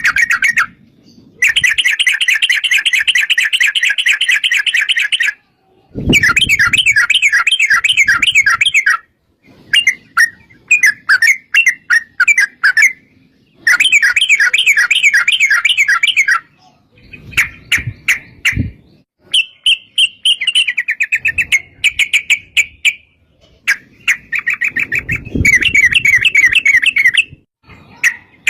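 Yellow-vented bulbul (trucukan) singing long, fast, rippling rolls of notes, phrase after phrase of one to four seconds with short gaps. Faint low rumbles sit under a few of the phrases.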